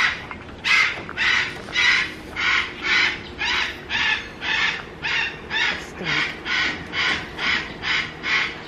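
An animal's harsh call, repeated evenly about twice a second, about seventeen times in a row without a break.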